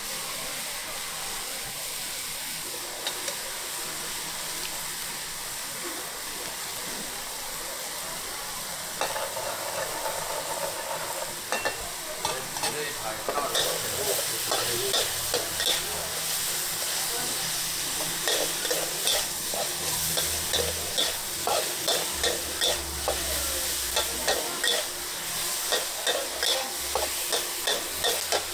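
Food sizzling in a hot pan while a metal spatula stirs and scrapes it. The first third is only a steady sizzle; then the scraping and clatter of stirring starts and settles into a regular rhythm of about two strokes a second.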